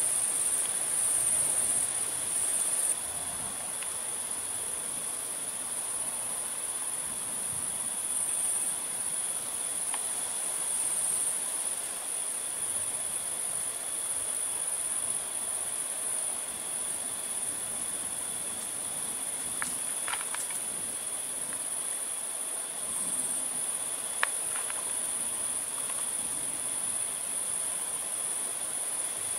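Crickets chirring in a steady, high-pitched trill, with a few faint clicks in the second half.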